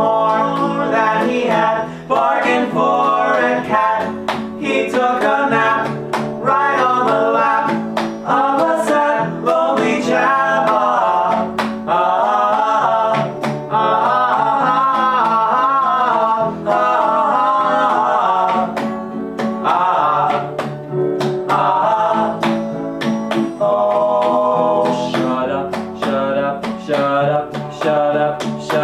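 Acoustic folk song: plucked and strummed guitar accompanying singing voices.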